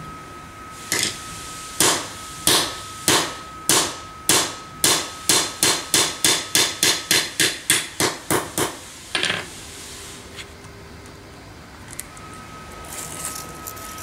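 A hammer striking a steel punch set in a nose-changer jig on a chainsaw guide bar, driving out the rivets that hold the bar's replaceable nose. About twenty sharp blows come faster and faster, from about one a second to three or four a second, and stop about nine seconds in.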